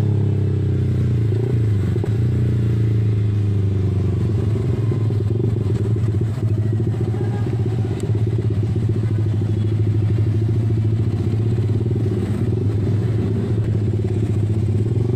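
Yamaha R15 V3's 155 cc single-cylinder engine running through an aftermarket R9 racing exhaust, at low, fairly steady revs as the bike rolls slowly through traffic.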